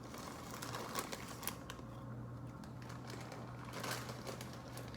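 Irregular small crisp crackles and clicks of chips being crunched and handled, over a faint low steady hum.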